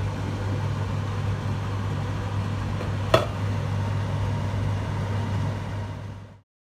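Steady low machine hum, like a kitchen appliance or fan running, with one sharp click about three seconds in; the sound cuts off suddenly shortly before the end.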